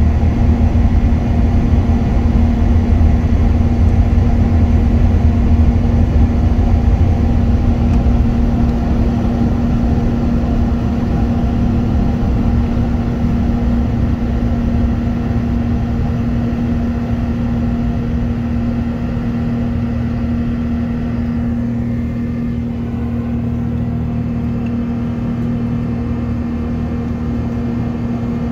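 Airbus A380 jet engines at takeoff power heard inside the cabin, a steady hum over a heavy low rumble from the runway roll. The rumble is strongest at first and eases after about ten seconds as the airliner leaves the ground and climbs, the whole sound slowly growing quieter.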